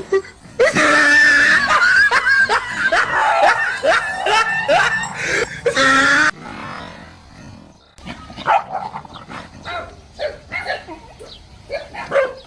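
A dog barking and yelping in alarm at a fake tiger. The barking is loud and dense for about six seconds, breaks off suddenly, and gives way to quieter, scattered barks.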